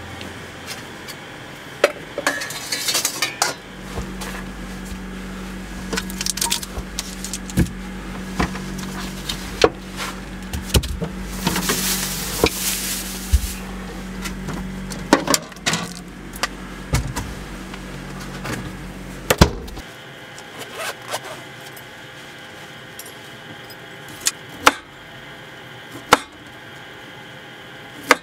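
Repeated clicks, knocks and clinks of cookware and camp kitchen gear being handled in a truck camper's kitchen. A low steady hum starts a few seconds in and cuts off suddenly about twenty seconds in, and a short hiss comes about halfway through.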